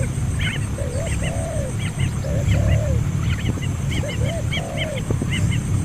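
Repeated animal calls, each a rising-then-falling call paired with short higher chirps, coming back about every one and a half seconds over a steady low rumble.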